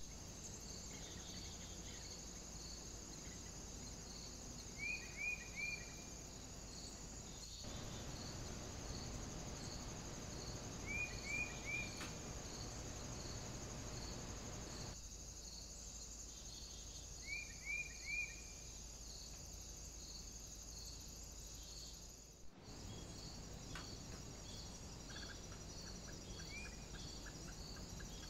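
Insects chirping in a regular high-pitched rhythm over a steady background hiss. Three times a quick run of three slightly lower chirps stands out. The background shifts abruptly a few times where separate recordings are joined.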